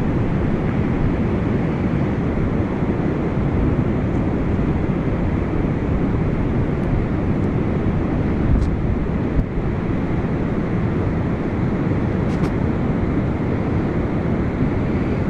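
Wind buffeting the microphone: a steady, low, rumbling rush of noise with no let-up, with a few faint ticks over it.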